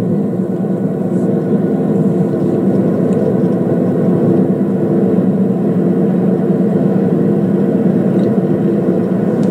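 Steady engine drone and tyre noise heard inside a car cruising on an open highway.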